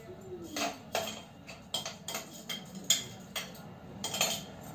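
Metal spoon clinking and scraping against a steel mixer-grinder jar, a run of irregular sharp knocks, as ginger and chilli paste is scraped out of it.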